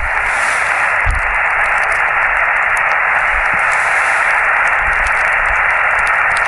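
Portable QRP ham radio receiver giving a steady hiss of band static, with no station coming through, while the operator listens for a reply after handing the contact over.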